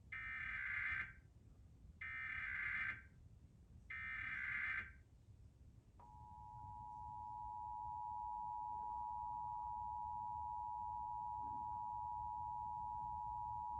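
Emergency Alert System test signal: three short bursts of digital header data, each about a second long, then about six seconds in the steady two-tone EAS attention signal, which swells in over a couple of seconds and then holds.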